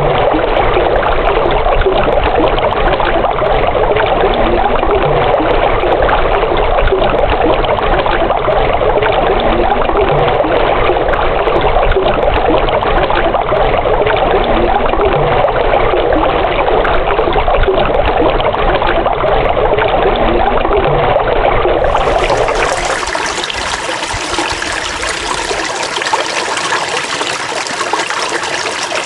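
Running water trickling and splashing steadily. Near the end it switches abruptly to a slightly quieter, brighter water sound.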